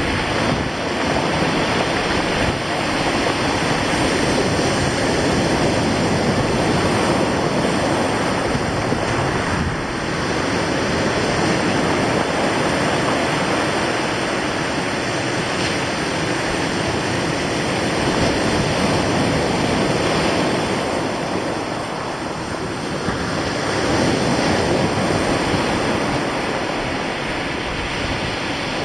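Surf breaking and washing over a sand and shingle beach, a steady rushing noise that swells and eases as the waves come in, with wind on the microphone.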